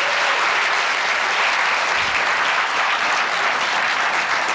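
Auditorium audience applauding steadily, welcoming a guest onto the stage.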